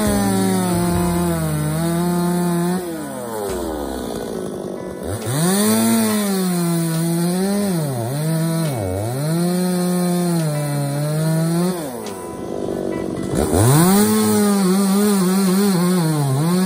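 Stihl MS260 two-stroke chainsaw cutting a log: three spells at full revs, with the revs falling back about 3 s in and again about 12 s in. The pitch dips sharply a couple of times in the middle spell as the chain bites into the wood.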